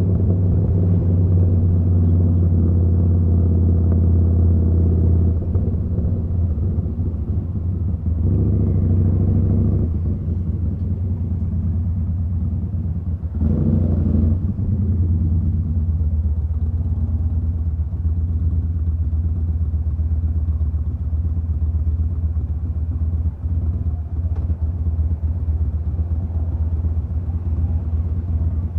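Yamaha Bolt's air-cooled V-twin running through a Vance & Hines slip-on exhaust while riding, a steady deep exhaust note. It eases off about ten seconds in and picks up again a few seconds later.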